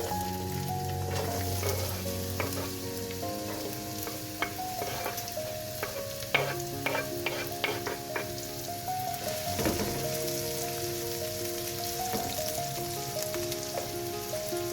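Food sizzling in a hot pan, stirred with a utensil that clicks and scrapes against the pan several times in the middle.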